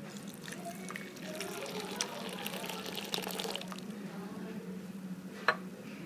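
Hot milk chai poured from one stainless-steel cup into another, splashing and frothing for about three seconds. A single sharp knock follows near the end.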